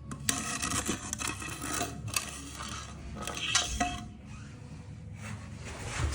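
Irregular scraping and rubbing in uneven strokes, loudest about three and a half seconds in.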